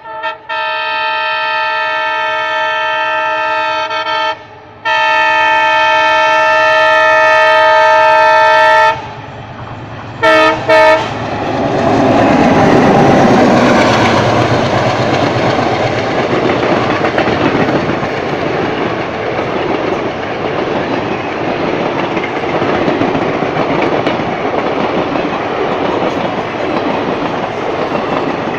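WDM3A diesel locomotive's horn sounding two long blasts with a short break between them, then two quick short toots. The locomotive then passes at speed, loudest just after the toots, and the train's coaches follow in a steady rumble with wheels clickety-clacking over the rail joints.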